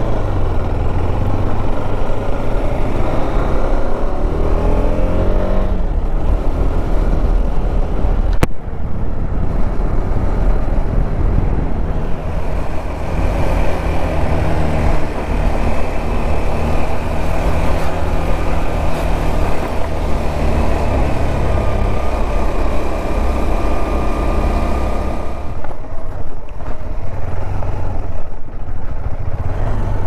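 Motorcycle engine running under way, with heavy wind rumble on the microphone; the engine pitch rises as it speeds up a few seconds in, then holds steadier. A single sharp click sounds about eight seconds in.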